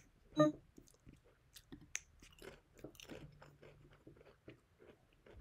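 A person eating close to the microphone: irregular short chewing sounds, with one louder short mouth sound about half a second in.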